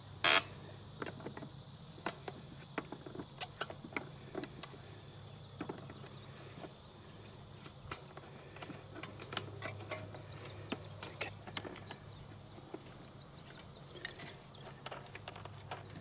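Hand tool clicking and tapping on the fittings of an electric fence charger: scattered small clicks all through, with one sharp, loud click just after the start.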